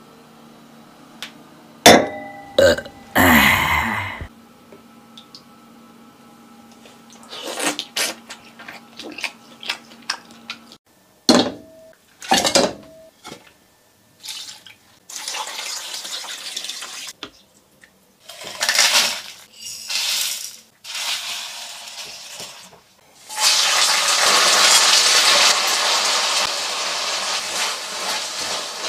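Kitchen cooking sounds: scattered knocks and clinks of pots, bowls and utensils, then a steady sizzle from about 23 s on as dried chilies and spices fry in oil in a pan.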